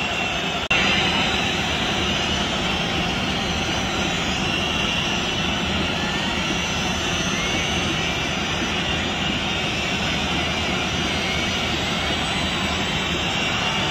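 Large stadium crowd making a steady, loud din during a football penalty shootout, with scattered whistling gliding above it. There is a brief break less than a second in, where the recording cuts.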